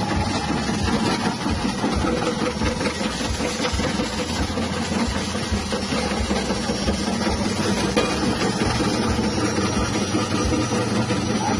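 Electric potato chip slicer running steadily, its 180-watt motor spinning the blade disc with a continuous mechanical hum while potatoes are fed in and cut into thin slices.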